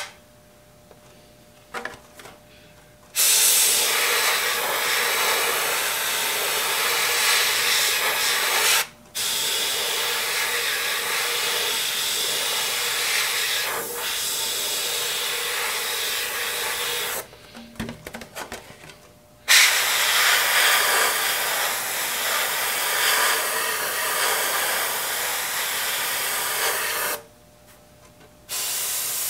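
Airbrush spraying paint: a steady hiss of air in long spells of several seconds, stopping and starting as the trigger is let off and pressed again, with a few faint clicks in the longest pause.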